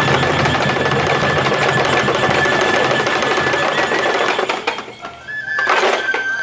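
Festival procession music: Japanese bamboo transverse flutes hold one high note over a dense, fast percussive clatter. The clatter breaks off a little after four seconds, and a loud strike follows near the end.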